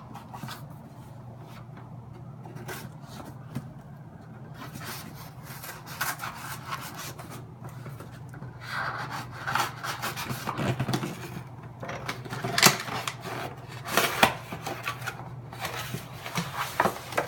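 A cardboard shipping box being opened by hand: scraping and rustling of flaps and packing, busier in the second half, with a few sharp knocks.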